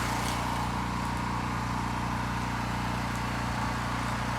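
Pressure washer's engine running steadily, with an even hiss of water spray over it.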